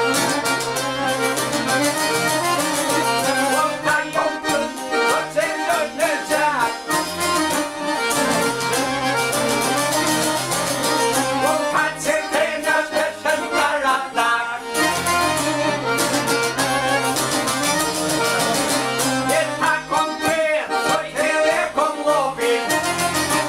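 Albanian folk ensemble playing: a çifteli and a sharki (long-necked plucked lutes), a violin and an accordion, with men singing along at times.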